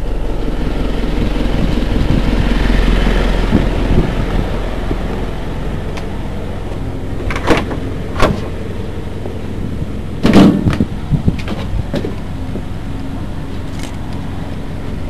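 A vehicle engine idling steadily, with a few sharp knocks and clanks about seven and eight seconds in and the loudest cluster around ten seconds.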